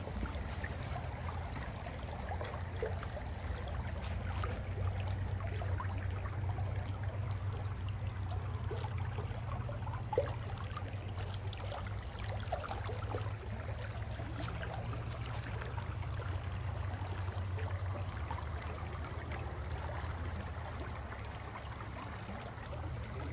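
Shallow stream running and trickling over rocks and gravel, a steady water sound with a constant low rumble beneath it.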